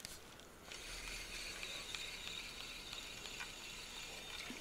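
Spinning reel being wound, a faint steady whir with small clicks that starts abruptly less than a second in and keeps going as the line is retrieved.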